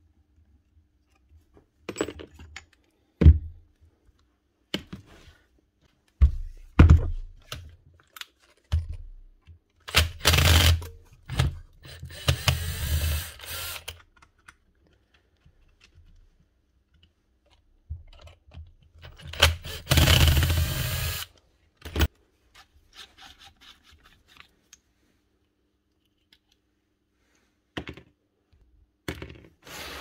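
A heavy magnetic drill being handled and tipped onto its side on a concrete floor: scattered knocks and thumps of metal, with two longer scraping stretches about ten and twenty seconds in.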